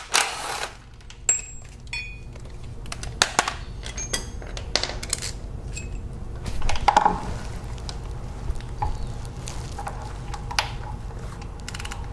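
Metal hand tools clinking: sockets, an extension and a ratchet being picked up, fitted and set down, with scattered sharp clicks and short ringing pings, over a steady low hum. A cordless impact driver's noise trails off in the first half-second.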